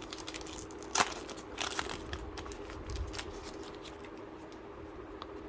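A foil trading-card flow pack being torn open and its wrapper crinkled, with a sharp click about a second in; the crinkling thins out after about two and a half seconds.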